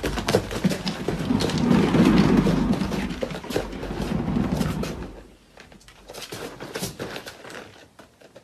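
A kitten clambering and scrambling about, with rumbling and clattering knocks for the first five seconds, then quieter scattered knocks.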